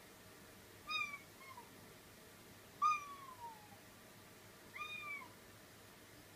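Domestic cat meowing three times, about two seconds apart; the middle meow is the loudest and longest, sliding down in pitch.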